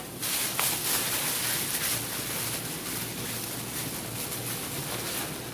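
Thin plastic bag crinkling and rustling in steady handling as its neck is gathered and twisted closed around marinated meat.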